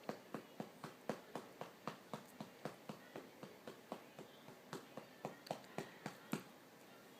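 Cupped hand patting a baby's back to bring up a burp: steady pats about four a second, stopping about six and a half seconds in after one harder pat.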